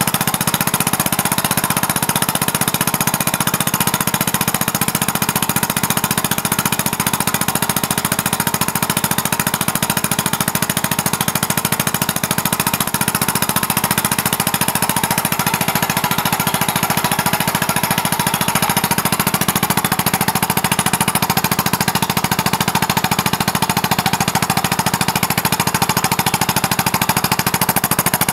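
Homemade compressed-air engine, a weed whacker's two-stroke engine converted to run on air, running fast with a rapid, steady chatter of exhaust puffs.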